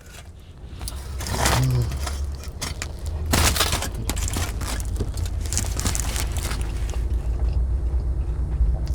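Low, steady rumble of a car engine running, louder from about a second in, with rustling and handling noise over it.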